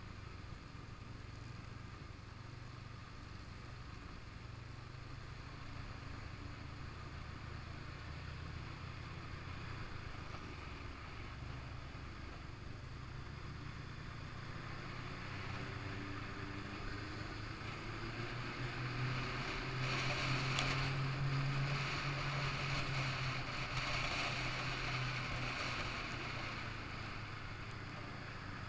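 Snowmobile engine running steadily under way, with a hiss from the track and wind. It grows louder for several seconds past the middle of the ride, then eases off.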